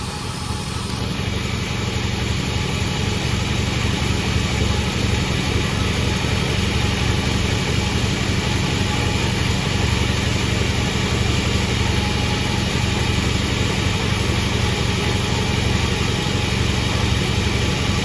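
Sawmill machine running steadily while sawing a sonokembang log, a constant engine hum under a broad rush of noise. It grows louder about a second in and then holds level.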